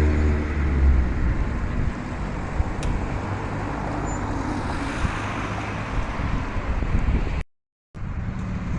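Outdoor road traffic: a vehicle's low engine hum fades away about a second in, leaving a steady rushing noise. The sound cuts out completely for about half a second near the end.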